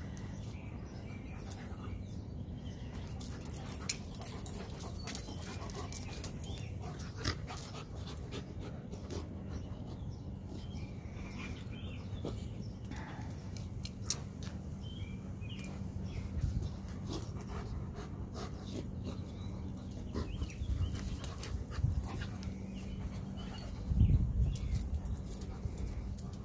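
Two goldendoodles, a puppy and an adult, play-wrestling: dog panting and small whimpers with scattered light clicks and scuffs, over a steady low hum. A short low rumble about 24 seconds in is the loudest sound.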